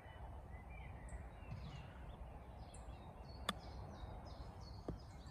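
Faint birds chirping over a quiet outdoor background. About three and a half seconds in comes one sharp click of a golf club striking the ball.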